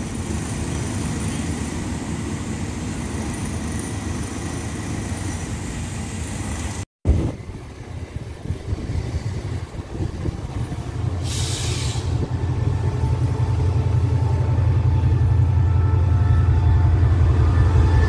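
Diesel train rumbling steadily. After a cut, a second diesel-electric locomotive, an SRT CDA5B1, pulls in close alongside hauling its coaches: its engine rumble grows steadily louder, with a brief hiss about eleven seconds in.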